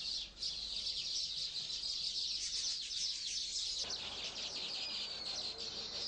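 A chorus of many baya weavers chattering together, a dense stream of rapid high chirps.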